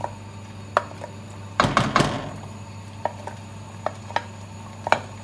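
Wooden spoon knocking and scraping against a ceramic plate and pot while garlic paste is scraped off it: a few sharp single taps, with a louder clatter about two seconds in, over a low steady hum.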